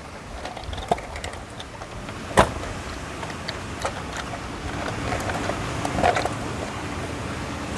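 A few light clicks and knocks from handling the plastic pool cleaner, one sharper click about two and a half seconds in, over a steady background hiss.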